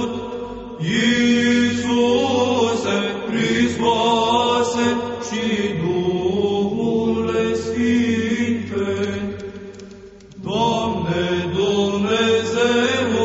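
Byzantine chant: a melismatic sung line over a steady low held drone (ison), with a short break in the singing about ten seconds in.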